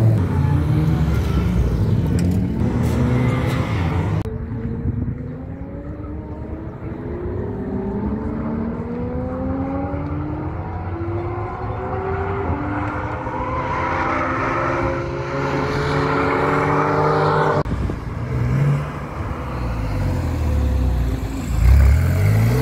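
Sports-car engines on a race circuit. First a loud engine close by. Then, farther off, engines accelerate with their pitch climbing again and again as they shift up through the gears. Near the end a Porsche 911's flat-six passes close by, its note dipping and then rising sharply as it revs.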